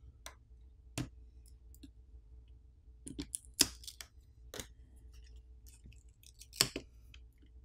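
Plastic pry pick working around the edge of a Sony Xperia 1 III's top plastic cover, with scattered sharp clicks and snaps as the cover's clips come free. The loudest snaps come at about three and a half seconds and again near the end, as the cover is lifted off.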